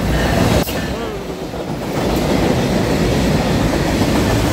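Freight train passing close by: the locomotive goes past, then the rolling wagons keep up a steady loud rumble that grows louder about two seconds in. A single sharp click sounds less than a second in.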